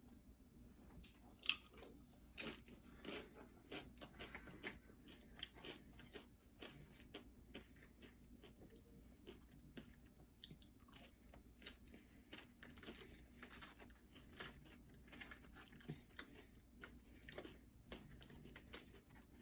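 A person biting and chewing Doritos nachos, with crisp crunches of the tortilla chips coming every second or so. The sharpest crunches come about one and a half and two and a half seconds in.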